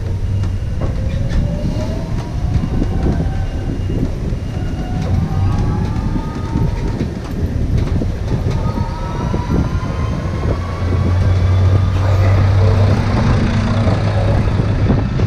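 Electric beach tram on the move: a whine from its drive that rises in pitch several times as it picks up speed, over a steady low hum, road noise and scattered knocks and rattles.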